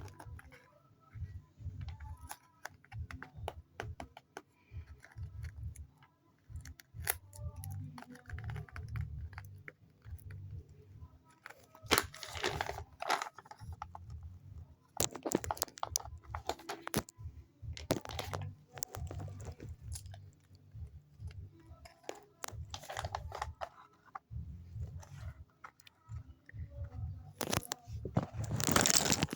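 Paper blind bag being handled and opened by hand: crinkling, crunching and tearing of paper and tape. Several louder rustling bursts come through, the loudest near the end, with soft handling bumps in between.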